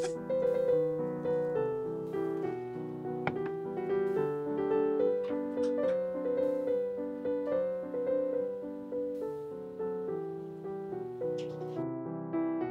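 Background piano music: a melody of separate notes, each sounding and then fading.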